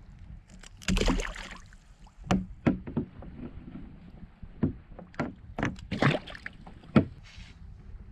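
Irregular sharp knocks and bumps on a kayak, with a short rushing, splash-like sound about a second in, over low water and wind noise.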